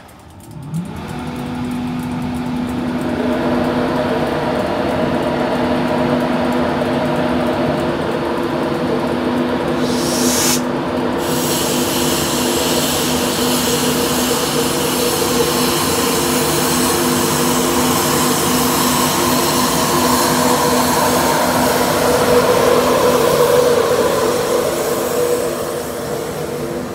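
A Class 91 electric locomotive and its InterCity 225 coaches run along the platform. The train's sound swells over the first few seconds into a steady rumble with several steady whining tones, and there is a brief high hiss about ten seconds in.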